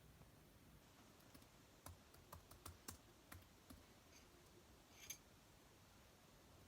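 Near silence broken by a handful of faint, irregular clicks and taps between about two and four seconds in, and one more about a second later.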